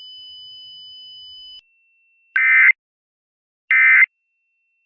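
Emergency Alert System end-of-message (EOM) data bursts: two short, loud, raspy digital bursts about a second and a half apart, marking the end of the alert. Before them a steady high tone cuts off about a second and a half in.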